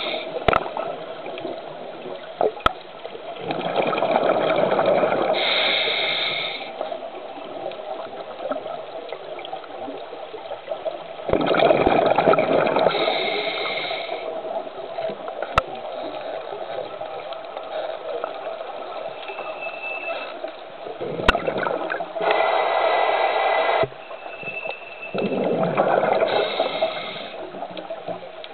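Scuba diver's regulator breathing, heard underwater: bursts of exhaled bubbles rushing and gurgling for two or three seconds at a time, several seconds apart, over a steady hiss.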